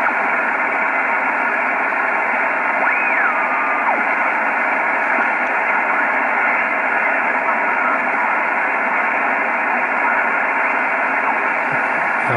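Yaesu FR-101S shortwave receiver tuned across an empty 20-meter band, its speaker giving a steady hiss of band noise cut off sharply above about 2.7 kHz by the sideband filter. About three seconds in, a faint whistle glides up and back down as the dial moves.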